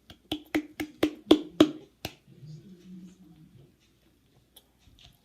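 A grated-cheese container being tapped to sprinkle cheese onto food: about eight sharp, hollow taps, roughly four a second, that stop about two seconds in.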